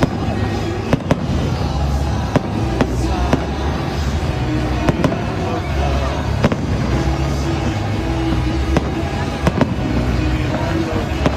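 Fireworks display going off with a dozen or so sharp bangs at irregular intervals, over loud music.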